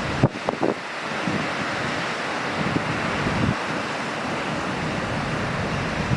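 Ocean surf washing in a steady roar, with wind buffeting the microphone in a few low knocks within the first second.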